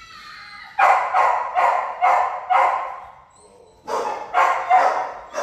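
A dog barking in short, quick barks: five in a row, a pause of about a second, then four more.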